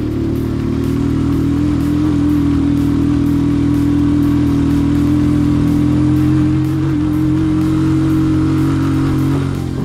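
Motorcycle engine running at a steady speed, an even drone that eases slightly near the end.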